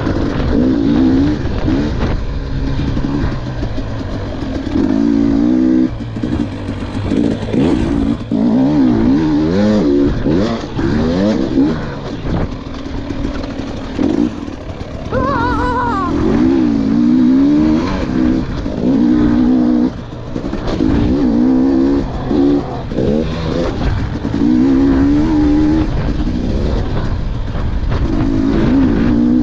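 KTM dirt bike engine revving up and dropping back again and again as it is ridden hard around a motocross track, heard close up from a camera on the rider. About halfway through, the pitch briefly climbs much higher and falls back.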